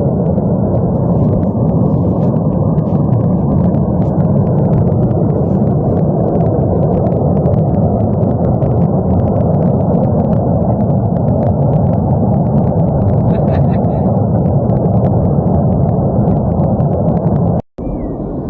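Steady, loud rushing noise of high-pressure gas escaping and burning at a leak on a main gas pipeline.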